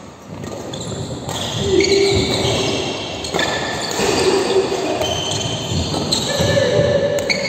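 Badminton rally: racket strikes on the shuttlecock, several sharp hits a second or so apart, and sneakers squeaking on the court floor, echoing in a large sports hall.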